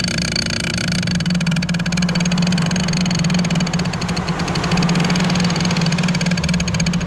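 An engine idling steadily, a constant low drone with an even, fast firing rhythm.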